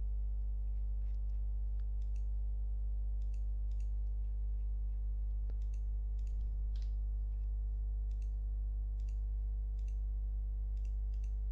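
Faint, scattered clicks of a computer mouse over a steady low hum.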